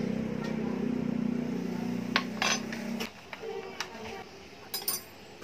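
A metal spoon clinks against a ceramic bowl a few times as grated cheese and pepper are added to raw eggs. For the first three seconds a steady low hum runs underneath, louder than the clinks, and it cuts off suddenly.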